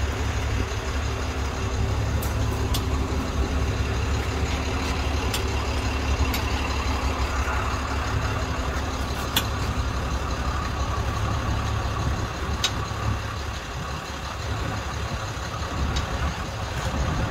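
Wrecker tow truck's engine idling steadily. A handful of light metal clicks come from the fifth-wheel tow adapter as it is handled.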